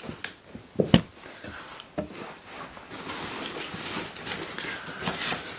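Cardboard parcel being opened by hand: cut packing tape and cardboard flaps are pulled and torn back, with a few sharp knocks and crackles, then a longer stretch of tearing and rustling in the second half.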